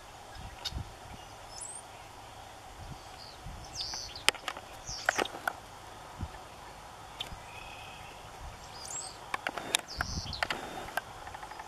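Outdoor ambience with small birds chirping briefly now and then, and scattered soft clicks and rustles as a sandhill crane probes dry grass and soil with its bill. The crane itself does not call.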